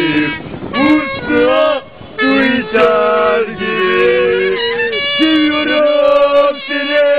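A song being sung with instrumental accompaniment: sung phrases with sliding notes over held, sustained tones, broken by brief pauses between phrases.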